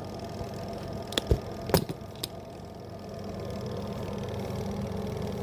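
Dryer motor running with a steady hum, with a few sharp clicks or knocks about a second in.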